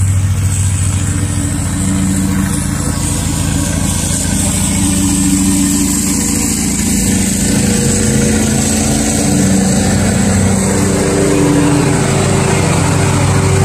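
Zero-turn riding lawn mower engine running steadily under mowing load, a constant low hum.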